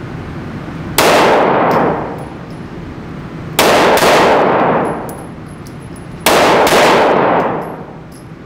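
Shots from a 9mm P365-based pistol, three of them about two and a half seconds apart. Each is a sharp crack that rings out in the echo of an indoor range.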